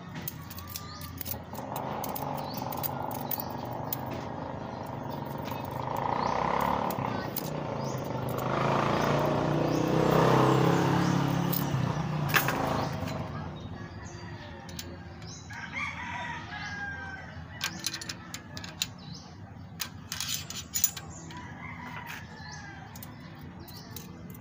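Light metallic clicks of a wrench and feeler gauge on an engine's rocker-arm adjusters during valve clearance setting. Behind them an engine hums, swelling to its loudest about ten seconds in and then fading, and later some bird calls.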